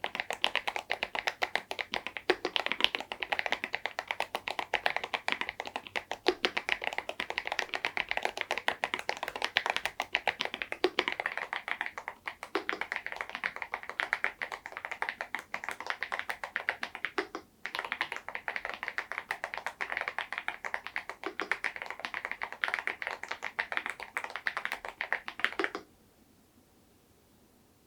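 Continuous fast typing on an EPOMAKER Dynatab 75X mechanical keyboard with tuned KTT Macaron Blue tactile switches and KDA-profile keycaps: a dense stream of clacky keystrokes. There is a brief pause about halfway through, and the typing stops near the end.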